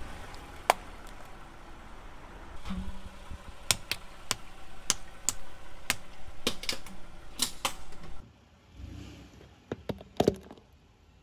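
Car tyre crushing small objects on asphalt, including wooden clothespins: a series of sharp cracks and snaps, most of them packed into the middle, with another quick cluster of snaps near the end.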